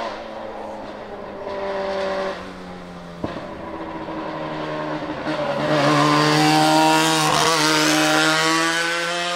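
Twin-turbo 13B rotary engine of the Mazdaspeed March 84G Group C race car pulling away and accelerating hard. The engine note is steady at first, with a single sharp crack about three seconds in, then climbs and grows loud, dipping briefly in pitch on a gear change before climbing again.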